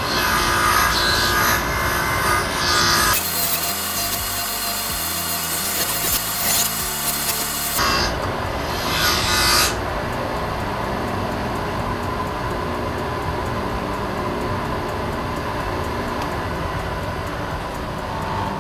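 Bench grinder running while a part is pressed against the spinning wheel, giving a harsh grinding and scraping that is strongest in the first half. In the second half the grinder runs more evenly, with less contact.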